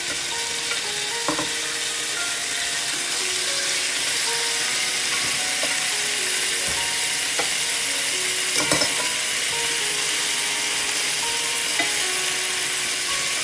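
Marinated chicken halves searing skin-side down in hot oil in an enamelled pan over high heat: a steady high sizzle. A few light knocks of utensils against the pan come about a second in, near two-thirds of the way through and near the end.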